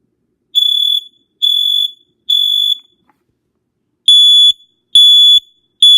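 Kidde Fyrnetics 1275 smoke alarm's piezo horn sounding its test pattern: two groups of three half-second high-pitched beeps, with a pause between the groups. The second group is a little louder. The owner says the piezo is messed up and needs replacing.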